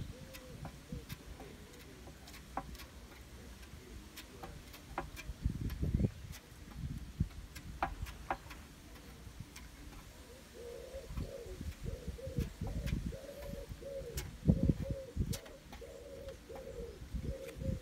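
A dove cooing in a quick run of short repeated coos through the second half, with a brief coo at the start. Under it come low knocks and thin clicks from a plastic spreader working body filler over a panel; the loudest knocks fall about two-thirds of the way in.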